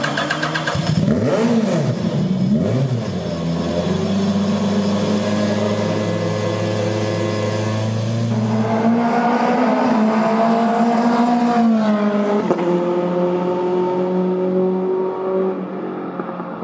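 Formula Renault 2.0 single-seater's 2.0-litre four-cylinder engine running: a few quick revs rising and falling in the first seconds, then held at a steady speed that creeps up and drops back about twelve seconds in.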